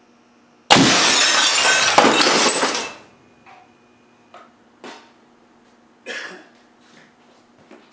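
A bare CRT picture tube, its implosion band removed, imploding and shattering as an air cannon's lead slug strikes it. A sudden loud crash comes about a second in and runs on for about two seconds, with a second impact partway through. Then come a few short clinks and rattles of glass fragments settling.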